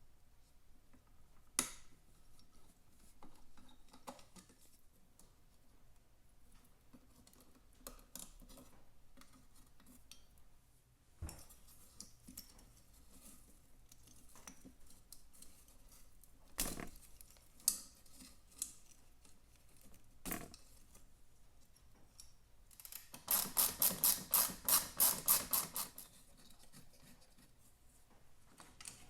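Hand tools and metal parts handled while taking the headlight assembly off a motorcycle: scattered sharp clicks and knocks, then near the end a run of about a dozen quick, even strokes, roughly four a second, like a ratchet or tool working a fastener.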